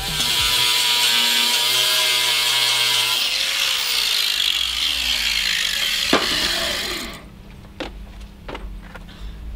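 Angle grinder grinding a welded patch on a steel boat hull: a loud, steady whine whose pitch sags partway through. The grinder stops about seven seconds in, followed by a few light clicks and knocks.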